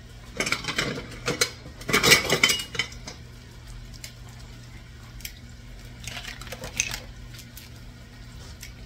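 Kitchen clatter of seasoning containers and kitchenware being handled and set down on the countertop. It comes in three bursts, about half a second in, around two seconds in and about six seconds in, the middle one the loudest, over a low steady hum.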